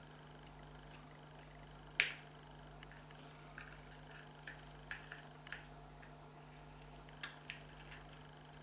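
Sparse small clicks and taps of a reverse light switch's snap-together housing being handled and pried apart with a tool, with one sharper click about two seconds in, over a faint steady hum.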